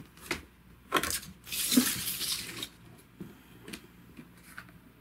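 Handling noise as a photograph is picked up off a wooden floor: a few light knocks, then a scraping rustle lasting about a second from about a second and a half in, then faint ticks.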